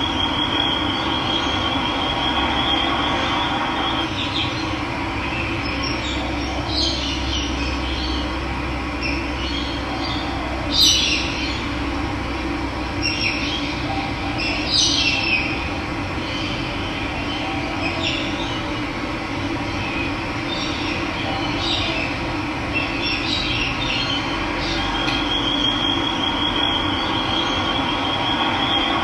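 Steady rush of running water with wild birds calling intermittently: short chirps every few seconds, and a high, thin trill at the start and again near the end.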